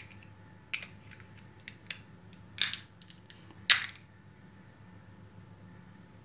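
Fingernails picking at a small plastic glitter container: a few light clicks, then two short, louder plastic scrapes about two and a half and three and a half seconds in.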